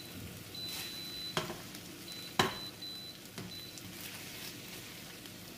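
Beef and vegetables sizzling as they stir-fry in a frying pan. A utensil knocks against the pan three times about a second apart, loudest in the middle.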